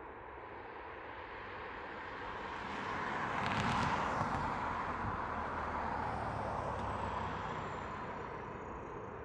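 Jet airliner passing by: engine noise swells to its loudest about four seconds in, then slowly fades, with a high whine falling in pitch near the end.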